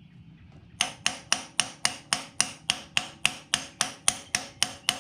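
Hammer blows on metal in an even run of about four sharp, ringing taps a second, starting about a second in. The hammer is tapping a press-fit part into the back of a Ford 351W V8 block to seat it square.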